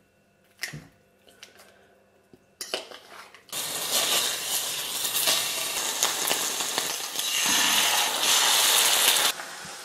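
A few light knife clicks on an avocado, then a hot frying pan on a gas hob sizzling loudly. The sizzle grows louder about seven to eight seconds in as eggs are cracked into the pan, then falls back near the end.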